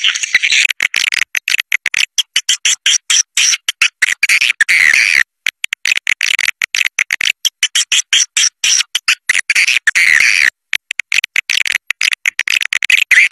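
A swiftlet caller recording: a dense, high twittering chorus of swiftlets, chopped by many brief, abrupt dropouts. It is the kind of call played at swiftlet nest houses to lure flocks in.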